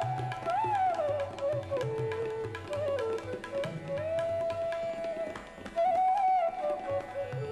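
Background instrumental music in an Indian classical style: a single melody line sliding smoothly between notes over hand-drum strokes.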